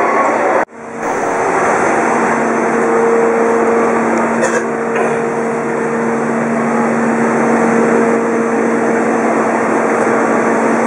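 Steady loud mechanical drone of a waiting diesel passenger train's machinery, with a constant low hum running under it. The sound drops out for a moment under a second in, then carries on unchanged.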